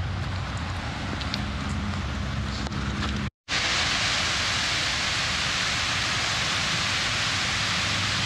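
Water rushing over a shallow concrete spillway into a creek: a loud, even hiss that starts abruptly about three seconds in, after a moment of outdoor wind and low rumble.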